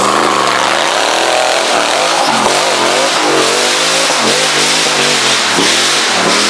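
Rock bouncer buggy's engine revving hard under load as it climbs a dirt hill, its pitch swinging up and down with repeated stabs of the throttle.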